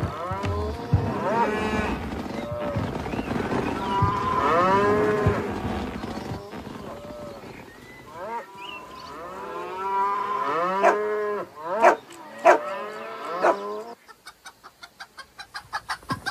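Cartoon cows mooing, several drawn-out calls that bend in pitch and overlap one another. Near the end they give way to a quick run of short ticks that speeds up.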